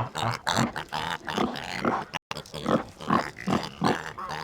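Pregnant Hampshire sow grunting in a rapid series of short grunts, a few a second, as she comes up close expecting to be fed.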